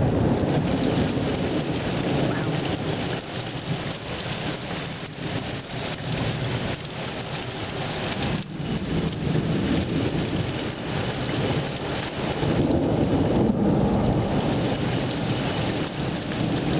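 Heavy rain pouring steadily in a thunderstorm, with low thunder rumbling under it and swelling louder about three quarters of the way through.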